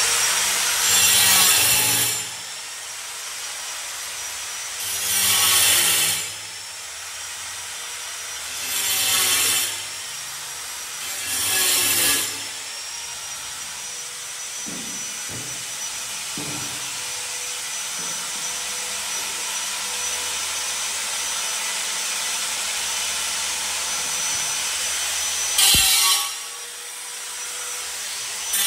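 A power tool's motor whines up to speed and then runs steadily. Five loud spells of cutting or grinding break in, each about a second long: four in the first half and one near the end.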